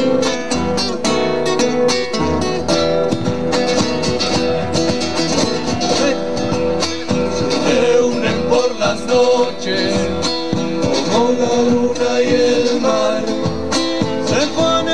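Live Argentine folk music: several acoustic guitars strumming and picking, with a bombo drum beating the low pulse.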